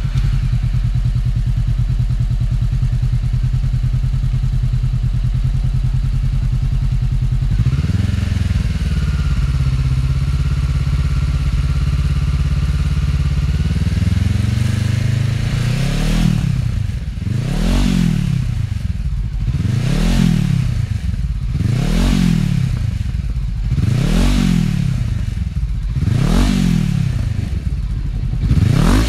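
Honda CB500X 471cc parallel-twin engine through a Remus aftermarket exhaust, idling steadily. About eight seconds in the idle rises and holds higher for a few seconds. From about halfway on, the throttle is blipped about every two seconds, the exhaust note rising and falling with each rev.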